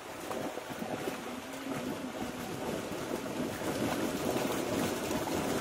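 Steady rushing noise of moving water, slowly growing louder, with a faint voice in the background.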